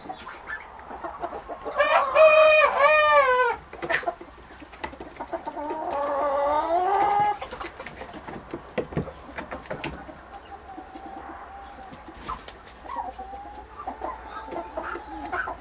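Chickens clucking in a coop, with a rooster crowing loudly in a long, broken call about two seconds in. A second long call follows around six seconds, then quieter scattered clucks.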